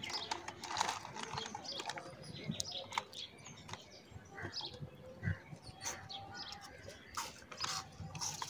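Crisp potato chip crunching and a chip packet crinkling in short, scattered crackles, with birds chirping faintly in the background.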